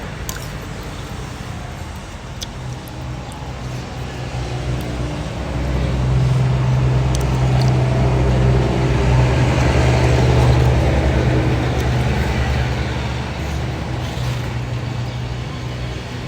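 A motor vehicle engine running with a steady low hum that swells louder about five seconds in and eases off again toward the end.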